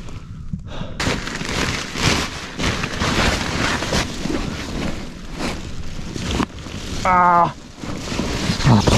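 Continuous rustling and crinkling of sleeping bags, an emergency blanket and pine boughs as someone shifts about on an inflatable sleeping pad, with a short pitched squeak about seven seconds in.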